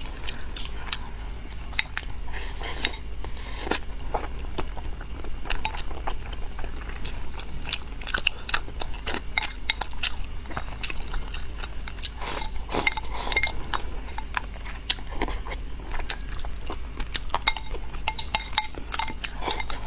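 Utensils clinking repeatedly against a bowl while someone eats close to the microphone, with chewing and mouth sounds between the clinks.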